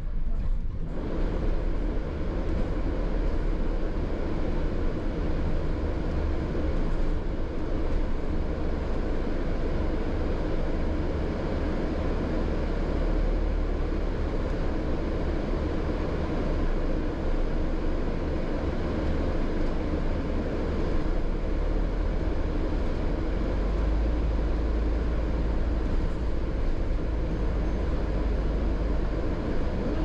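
A London double-decker bus running, heard from inside on the upper deck: a steady low engine drone with road and body rumble. The low rumble grows heavier for several seconds near the end.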